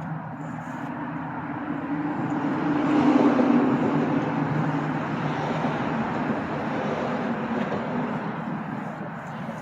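A passing motor vehicle: a low engine hum and road noise swell to a peak about three seconds in, then slowly fade.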